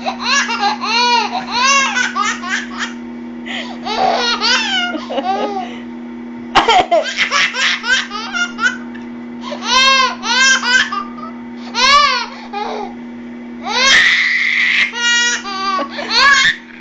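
Baby laughing in repeated bursts of high-pitched belly laughs, with short pauses between the bursts.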